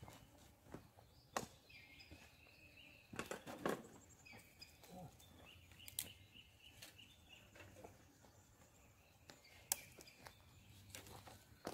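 Quiet outdoor bush ambience: faint bird calls, with scattered short clicks and knocks from people moving about and handling things, a busier patch of knocks about three seconds in.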